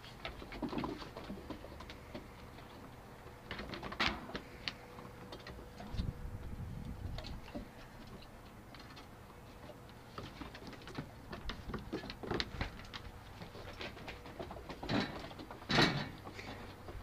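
Goldendoodle puppies playing on a wooden deck: scattered light clicks and taps of paws and claws on the boards, with a few small puppy vocal sounds and a louder short scuffle near the end.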